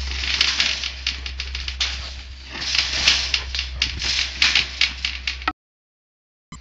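Wire-mesh hog trap panels rattling and clanking as a trapped deer jumps and thrashes against them: a fast, irregular clatter of hits in two flurries. The sound cuts off abruptly about five and a half seconds in.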